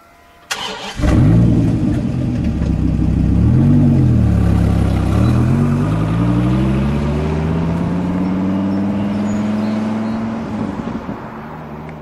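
Dodge Viper's V10 engine starting: a sharp crank, the engine catching about a second in, one brief rise and fall in revs, then the car pulling away with the pitch climbing steadily and fading near the end.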